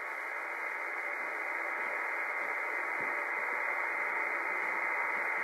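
Shortwave band noise, a steady static hiss from the Yaesu FT-1000MP Mark V's receiver with no station transmitting on the frequency. The hiss is held to the receiver's narrow voice passband and grows slightly louder.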